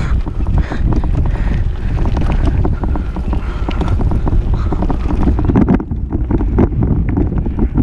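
Wind buffeting an action camera's microphone while a bicycle is ridden over a bumpy trail, with a constant clatter of rattles and knocks from the bike.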